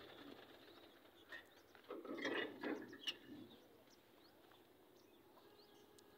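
Quiet outdoor ambience with faint bird chirps; a few brief noises and a sharp click come about two to three seconds in.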